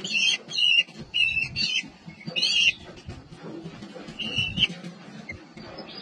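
Kestrels calling at a nest box: a series of six short, harsh, high-pitched calls, some in quick pairs, through the first five seconds.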